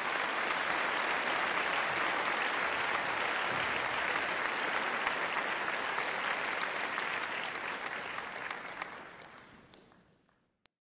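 A group of people applauding, a steady dense clapping that fades out over the last couple of seconds.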